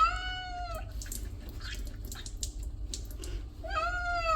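A male cat meowing twice, two long meows about a second each that rise and then hold their pitch, spaced roughly three and a half seconds apart. Faint drips sound between them.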